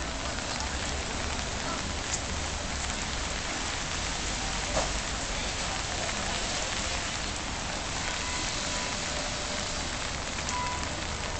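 Steady rain falling on wet paving and market tents, an even hiss with a sharper tick or two around the middle.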